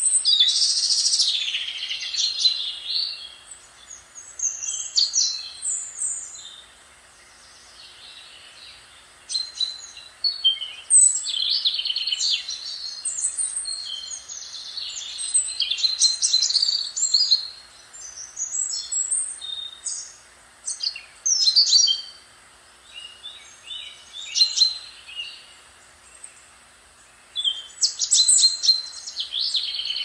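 Songbirds singing: a string of quick, high, varied chirping phrases with short pauses between them, over a faint steady hiss.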